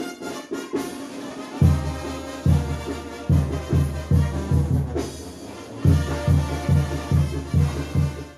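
Mexican banda brass band playing: a tuba bass line of short, evenly repeated low notes, about two and a half a second, comes in about a second and a half in under trumpets and drums, with a brief lull near the middle.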